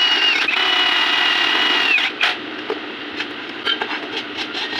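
A power tool running with a steady high whine, breaking off briefly just under half a second in and stopping about two seconds in. It is followed by quieter scattered clicks and scraping.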